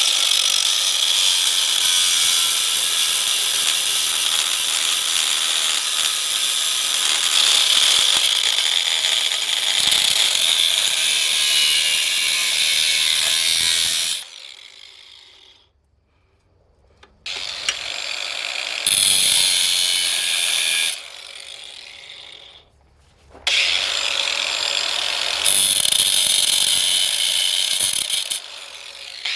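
A handheld electric power tool working steel with a steady, high hiss. It runs for about half the time, winds down to near silence, then starts up again for two shorter runs.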